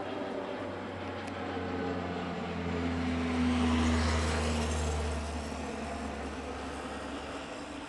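Canadair firefighting amphibious plane flying low overhead, its propeller engines droning. The sound swells to its loudest about halfway through, then drops in pitch and fades as the plane passes.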